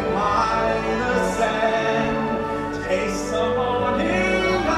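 Orchestral music with singing voices, the soundtrack of a fireworks show.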